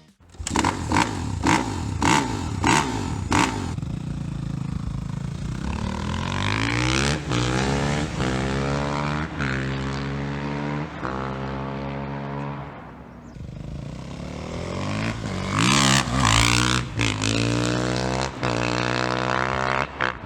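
A car engine accelerating through the gears: its pitch rises, falls back at each shift and climbs again, several times over. At the start there is a quick run of sharp knocks.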